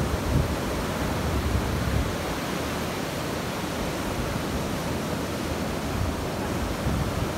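Ocean surf breaking and washing up a sandy beach, a steady rushing noise, with gusts of wind rumbling on the microphone.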